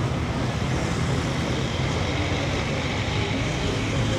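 Street traffic: motor vehicle engines running close by with a steady low hum, over the general noise of a busy city street.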